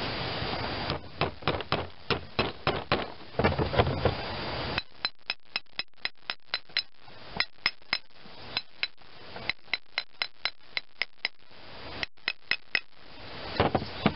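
Small hammer tapping metal on metal, driving a bearing into the end housing of a Delco-Remy starter-generator. After a few irregular knocks comes a long run of light, evenly spaced taps, about three a second, each with a bright metallic ring; a few more taps follow near the end.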